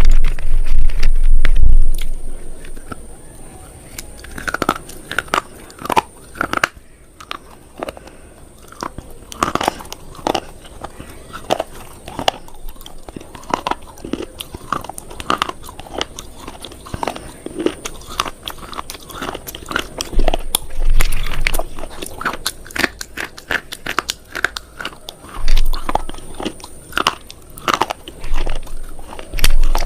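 Close-miked crunching as something hard and brittle is bitten and chewed: a run of sharp, irregular crunches, with heavy low thumps in the first two seconds.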